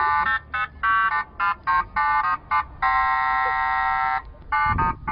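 Car alarm siren running through an elaborate pattern of short electronic beeps at changing pitches, with one long held tone in the middle, then quick beeps again.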